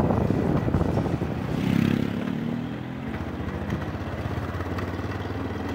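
Motorcycle engine running while riding, with wind noise on the microphone; about two seconds in the engine note rises briefly and then falls away.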